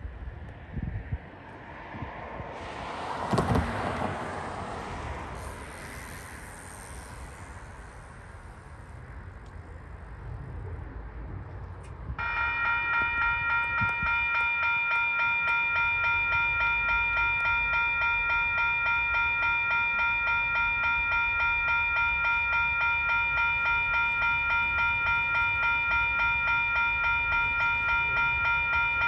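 Railway level-crossing warning bell starting about twelve seconds in and ringing steadily, a bright electronic ding pulsing about twice a second: the crossing warning for an approaching train. Before it, a swell of noise from a vehicle passing on the road about three seconds in.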